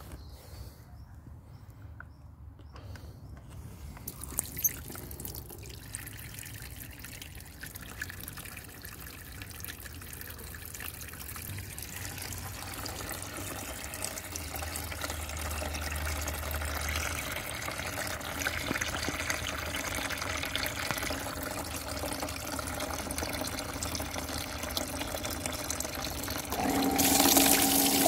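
Water trickling, growing gradually louder. About a second before the end, the Bestway sand-filter pump starts with a steady hum and backwash water gushes into a plastic basin.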